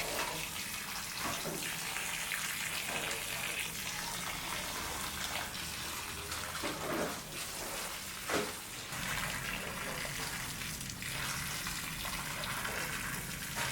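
Steady rushing noise like running water, with a short knock about eight seconds in.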